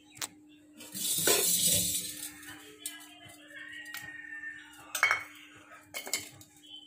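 Steel spoon scraping and clinking against a stainless-steel mesh strainer while pressing honeycomb to strain the honey: a longer scrape about a second in, then a few sharp clinks.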